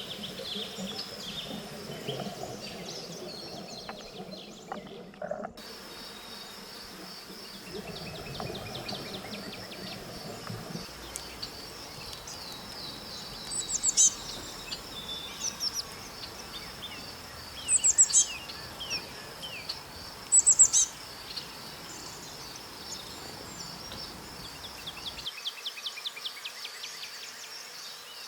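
Birds chirping over a steady high-pitched insect drone, with three louder bursts of bird calls about halfway through and quick trilling chirps near the end.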